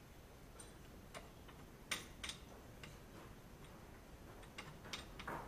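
Irregular light metallic clicks and taps, about eight of them, the sharpest around two seconds in: metal parts being handled at a muck spreader's flail rotor.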